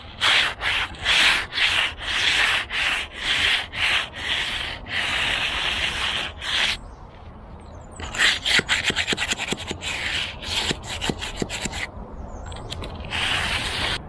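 Magnesium hand float scraping and smoothing soft, freshly poured concrete along the slab's wooden edge form, in repeated gritty strokes. The strokes come in quick runs with a few longer ones, and there is a brief pause about two-thirds of the way through.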